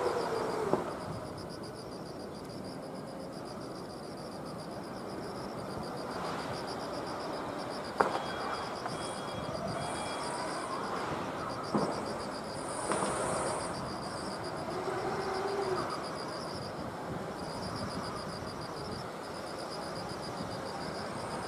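Insects chirping in fast, evenly pulsed high trills over outdoor background noise, with two sharp clicks, about eight and twelve seconds in.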